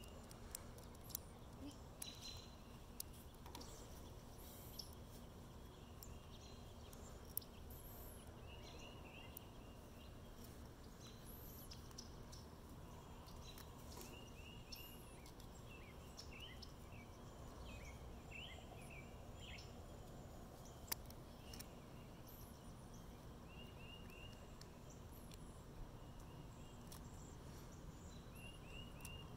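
Quiet outdoor background with faint birds chirping in short runs of quick notes, and a few light clicks from small plastic and metal parts of a 3D-printed spinner being handled.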